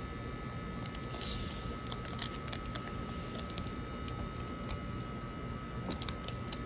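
Small plastic packet being handled and picked at by hand to open it: faint rustles and scattered small clicks over steady room noise, with a brief crinkling hiss about a second in and a cluster of clicks near the end.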